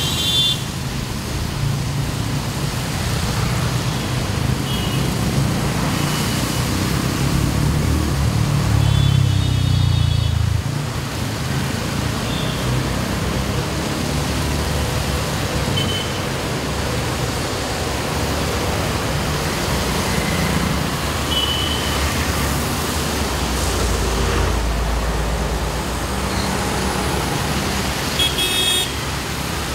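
Road traffic driving through a flooded underpass: engines running and tyres hissing through standing water, with short horn toots now and then. A low engine rumble swells about a third of the way in and again later on as heavier vehicles pass.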